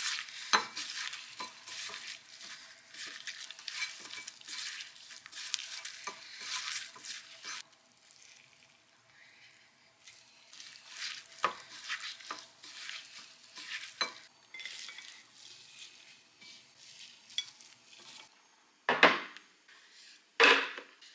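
Gloved hands tossing shredded chicken with sliced onion and herbs in a bowl: wet, crackly rustling with scattered clicks, pausing briefly partway through. Near the end, a few louder thuds as dishes are set down.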